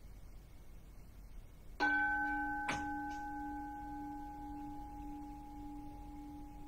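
A Buddhist standing bowl bell is struck about two seconds in, with a sharp second knock a moment later. It then rings on with a steady tone that fades slowly.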